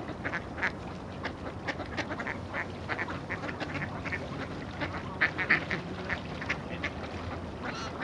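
A flock of mallard ducks quacking: many short calls in quick succession, the loudest a cluster about five seconds in, over a steady low rumble.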